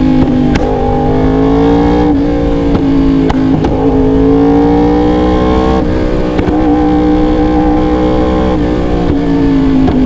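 Yamaha R1's crossplane inline-four running loud through an AR exhaust, revs climbing slowly for a few seconds, then dropping back and settling. Several sharp backfire pops come through the exhaust, which pops strongly.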